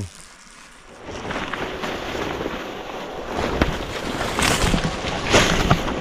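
Fabric of a protective bee suit rustling as it is pulled on. It starts about a second in, with a few sharper knocks and clicks in the second half.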